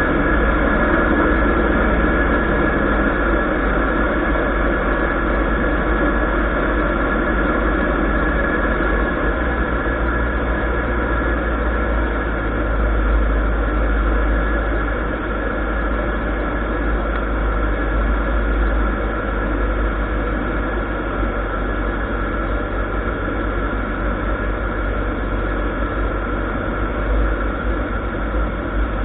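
Light aircraft's ULPower piston engine and propeller running steadily in flight, heard from inside the Zenith 750's cockpit as a constant drone with a low hum. It eases a little in loudness partway through.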